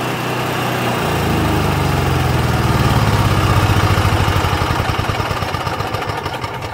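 Cummins Onan QG 4000 RV generator's single-cylinder OHV gasoline engine running, its note changing about a second in and then slowing and pulsing as it winds down toward a stop, with the stop switch held.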